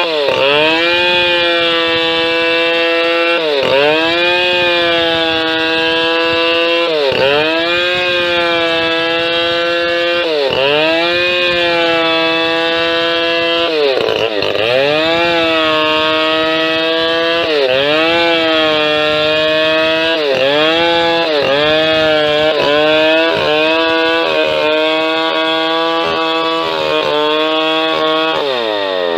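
Two-stroke chainsaw running at high revs while ripping wood lengthwise into boards. Its pitch drops sharply and climbs back every few seconds, and more often near the end, as the engine is loaded in the cut and the throttle is eased and opened again.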